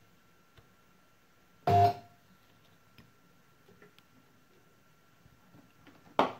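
Pulse spot welder firing once about two seconds in: a loud short snap with a brief beep as its hand-held pen welds a nickel tab onto a NiCd cell. A faint steady high whine runs underneath, and a second sharp knock comes at the very end.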